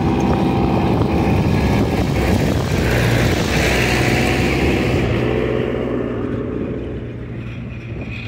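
An engine running steadily at an even speed, growing fainter near the end.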